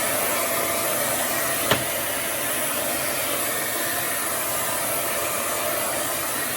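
Dyson Light Ball Multifloor upright vacuum cleaner running: a steady rush of air with a faint steady whine in it, and a single sharp click about two seconds in.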